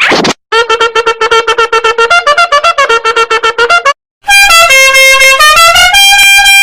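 Two comedic meme sound-effect clips in a row: first a quick tune of short, clipped notes, then after a brief break a brassy, horn-like melody of held notes stepping up and down in pitch.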